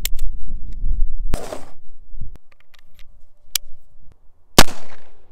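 Taurus Deputy .45 Colt single-action revolver being handled: a run of small metallic clicks from its action, with two much louder sharp cracks, about a second in and near the end, each trailing off over about half a second.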